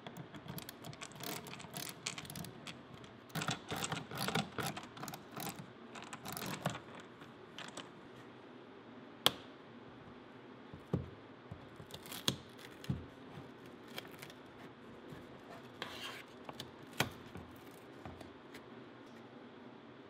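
Screws being backed out of a factory car door speaker with a hand screwdriver: a quick run of clicking and scraping for about the first seven seconds. Then a few separate clicks and knocks as the plastic-framed speaker is worked out of the door.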